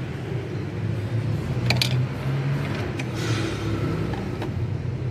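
A few light metallic clicks and a short scrape of a box-end wrench working a rocker-arm adjuster lock nut while the valve clearance is set, over a steady low hum.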